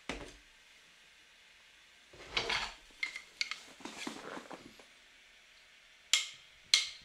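Handling of a cat scratching post's fabric-covered platform board: rustling and light knocks as it is lifted off the post and turned, then two sharp knocks near the end.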